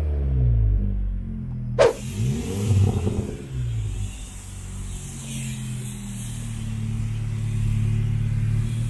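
Seat Leon Cupra 300's turbocharged 2.0-litre four-cylinder through a 3.5-inch E-Exhaust cat-back system: engine speed falling back from a rev at the start, a second rev rising and falling about two to three seconds in, then a steady idle. A single sharp click just before two seconds in.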